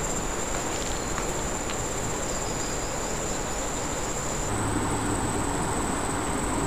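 Riverbank ambience: a steady rush of flowing river water with a constant high-pitched insect trill over it. About four and a half seconds in, the trill shifts slightly higher and a low hum joins.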